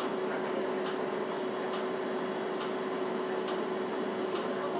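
Inside a Los Angeles Metro bus stopped in traffic: a steady hum with the turn-signal indicator ticking evenly, a little more than once a second.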